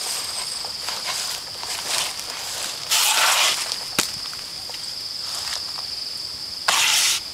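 Abaca sheath strips being pulled by hand under a manual decorticating blade: two loud scrapes, about three seconds in and again near the end, with a sharp click between them and fainter scrapes before. A steady high insect drone runs underneath.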